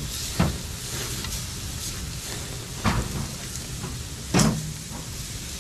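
Tri-tip sizzling on the grate of a steel barrel smoker over direct fire, with three sharp knocks as a long wooden-handled tool moves the meat around on the grate.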